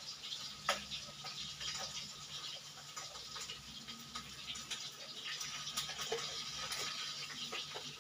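Hot oil sizzling and crackling in a wok over a gas burner: a steady hiss with irregular pops, over a low burner hum.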